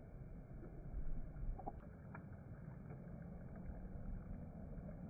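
Low, uneven rumble of wind buffeting a phone microphone at the seashore, with a couple of faint clicks about two seconds in.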